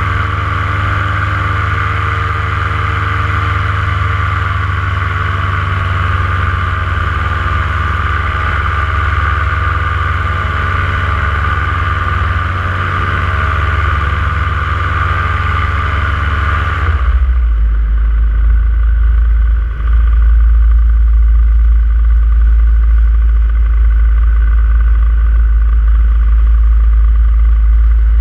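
Paramotor engine running steadily in flight. About two-thirds of the way through, the higher part of the sound drops away suddenly, leaving a heavy low rumble.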